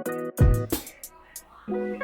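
Plucked guitar music, with a deep, loud thump about half a second in followed by a few short clicks.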